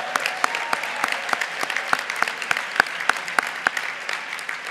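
Audience applauding, a dense patter of many hands with a few sharp individual claps standing out.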